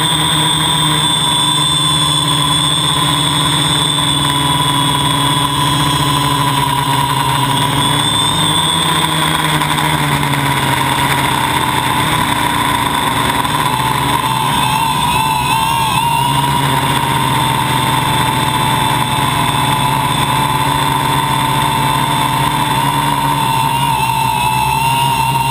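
Homebuilt drone's motors and propellers running steadily in flight, heard close up from the camera on board: a loud, even whine whose pitch wavers slightly.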